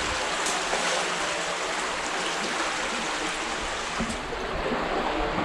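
Shallow stream water running steadily through a brick culvert, a continuous rushing, with a faint knock or two near the end.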